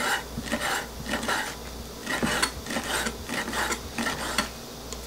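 Chef's knife slicing soft, stock-soaked kelp into thin strips on a wooden chopping board. The knife strikes the board in a steady run of short chops, about two or three a second, which stop shortly before the end.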